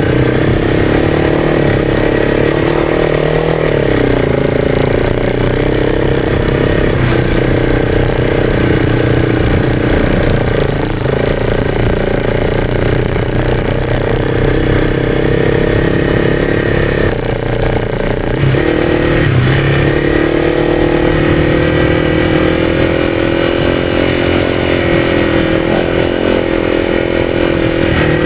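Honda CRF300's single-cylinder four-stroke engine running hard under load through deep sand, its revs rising and falling with the throttle, with a couple of brief dips in pitch along the way.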